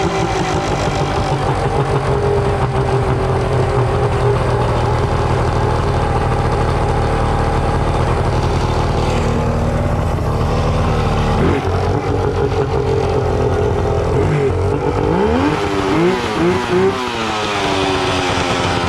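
Suzuki DT65 two-stroke outboard engine running at a steady speed, then revved up and down several times near the end.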